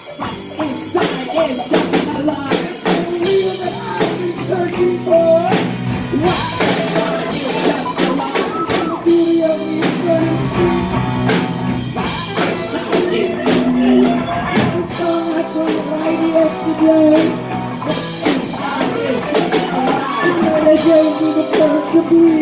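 Live rock band music: a drum kit keeping the beat under held, pitched instrumental notes, with no lyrics sung.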